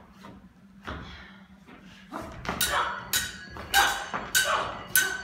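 Stage-combat rapier blades clashing in a quick, even rhythm, about five clashes from about halfway on, each ringing briefly. A single thump about a second in comes before them.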